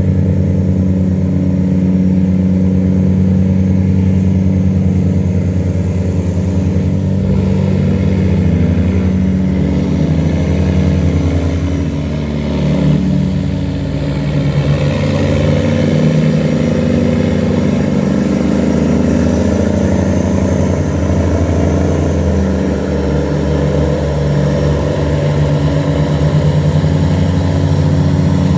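Engines of river tugboats running steadily under load while towing barges against the current, with a deep, even engine hum and a brief slight dip in loudness about halfway.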